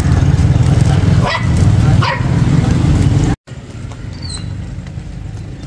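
A dog barks twice over a loud, steady low rumble. About three and a half seconds in, the sound cuts out briefly and comes back as a quieter steady low hum.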